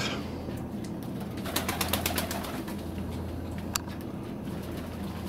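Domestic pigeons cooing in a wooden loft over a steady low hum, with a run of light clicks and rustles about a second and a half in and a single sharp click near the end.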